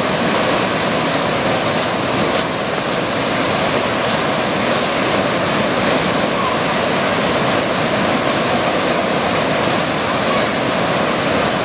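Fast river water rushing steadily through the Eisbach's standing surf wave, a constant churn of whitewater.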